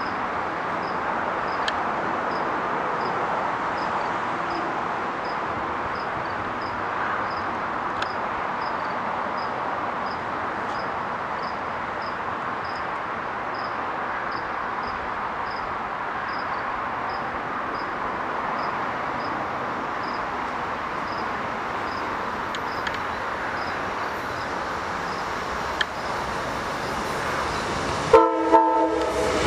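Steady low rumble of an approaching Amtrak passenger train led by a GE P42DC locomotive, with a faint high ticking repeating about every two-thirds of a second until near the end. About a second and a half before the end the locomotive's horn gives a short blast, and the train's noise grows as it draws near.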